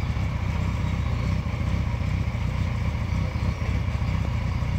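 A 600 cc motorcycle engine idling steadily, a low, even, rapid pulsing with no revving.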